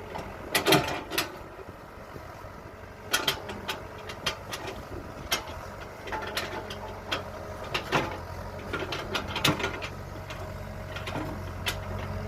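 Kobelco excavator's diesel engine running steadily under load, with a string of sharp, irregular cracks and clanks from the working machine. The engine grows a little louder in the second half.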